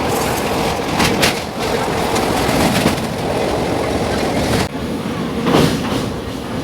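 Passenger train running along the track: a steady rumble with a faint steady tone, broken by brief louder clatters about a second in and again near the end.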